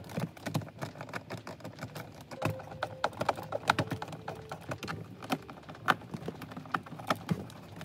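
Irregular quick clicks and taps of a hand screwdriver and fingers working screws into the center dash trim panel around the gauges.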